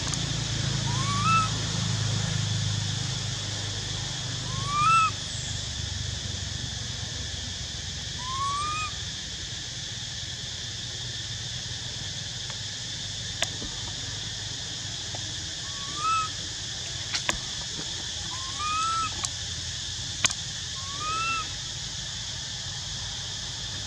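Infant long-tailed macaque crying: six short coos that each rise in pitch, spaced a few seconds apart, over a steady high hiss, with a few sharp clicks in between.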